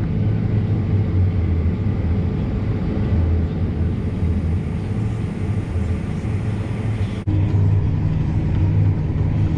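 Farm tractor's diesel engine running steadily under load while pulling a grain cart. About seven seconds in there is a sudden break, and the drone carries on a little louder.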